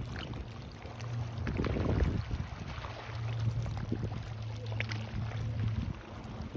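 A boat engine drones steadily at a low pitch over water lapping on the shore, with a louder wash of water about two seconds in and the drone fading out near the end.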